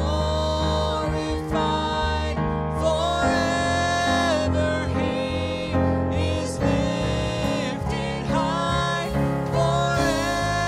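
A woman and a man singing a worship chorus together into handheld microphones, with sustained sung notes over a steady instrumental accompaniment.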